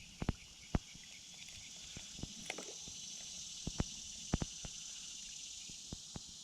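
Insect chorus: a steady high buzz that swells in the middle and eases off, with scattered sharp clicks and knocks over it.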